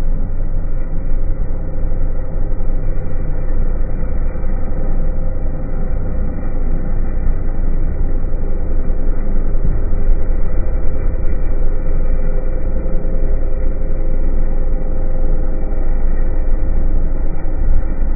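Polaris snowmobile running steadily at an even speed, heard from a sled towed close behind it: a loud, steady low rumble with the engine note held at one pitch.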